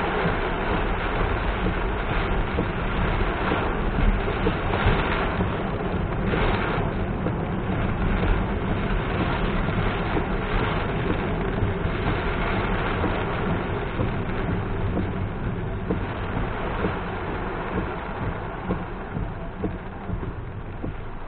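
A car driving through heavy rain: a steady rush of rain and tyres on the wet road, with scattered small knocks, easing slightly near the end.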